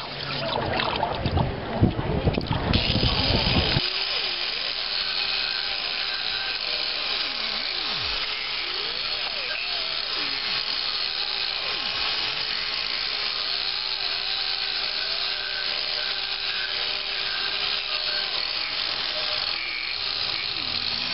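Hot forged iron quenched in a bucket of water, hissing and bubbling with steam. About four seconds in, an electric angle grinder starts and runs steadily, its pitch dipping now and then as it bears on the metal.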